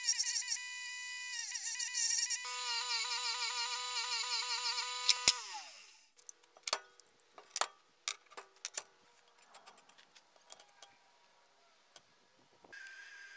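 Ryobi 370 W bench grinder-sander running while steel feet are sanded on its belt, its pitch dipping and wobbling under load. About five seconds in it clicks off and winds down. Then come scattered light clicks and knocks of the metal pieces being handled, and a steady hiss starts near the end.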